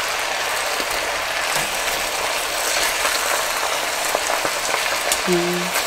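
Oxtail sizzling in hot fat as it browns in a Dutch oven: a steady frying hiss, with a few light clicks and taps.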